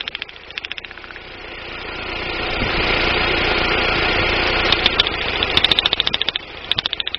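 Daewoo Nubira's 2.0 L DOHC four-cylinder engine running, with a fast, even ticking at idle. About a second and a half in it is revved up and held for a few seconds, then drops back to the ticking idle near the end. The owner suspects a misfire from weak spark out of the DIS ignition coil.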